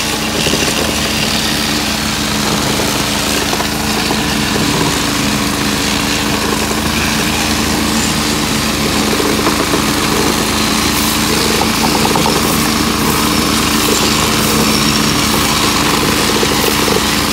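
Small engine-generator running steadily, with handheld electric ballast tampers vibrating as they pack stone under concrete railway sleepers.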